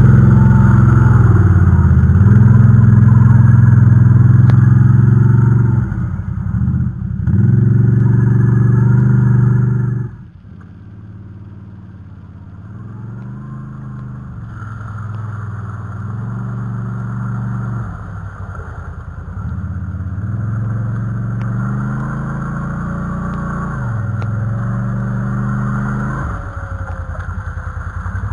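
Can-Am Outlander ATV engine working hard off-road, revving up and down with the throttle. It is loud for about the first ten seconds, drops off sharply, then keeps running at lower revs that rise and fall.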